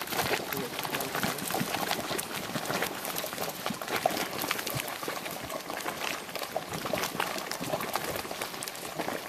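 Steaming geothermal pool of grey muddy water boiling, with a steady run of irregular bubbling and plopping as gas breaks through the surface in several spots.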